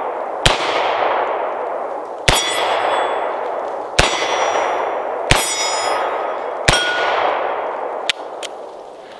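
Taurus 856 .38 Special snub-nose revolver fired five times, about one and a half seconds apart. Each shot is followed by the clang of a struck steel plate target, ringing out and fading slowly. Two faint clicks come near the end.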